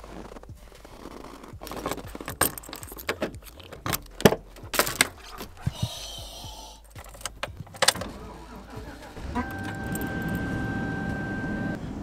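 Keys jangling and sharp clicks and rattles as the van is unlocked and entered. About nine seconds in, the van's engine starts from cold in below-freezing weather and settles into a steady low running sound, with a steady high tone sounding over it for about two seconds.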